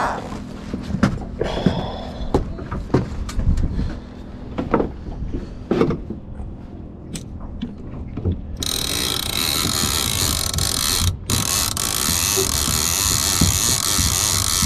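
Fishing reel being cranked to wind in line, with irregular mechanical clicks and knocks. About eight and a half seconds in, a loud steady rushing noise starts suddenly and carries on.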